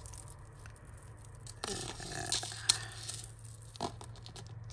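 A metal chain necklace with small charms being handled and untangled on a tabletop: rustling, scraping and light clinking, with a sharp click about two and a half seconds in and another a second later.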